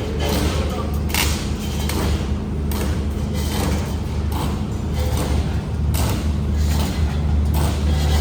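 Reinforcement-cage welding machine for concrete pipes running: a steady low electrical hum with irregular sharp clanks and crackling bursts every second or so.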